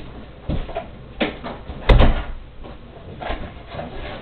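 A few separate knocks and bumps, the loudest and sharpest about two seconds in.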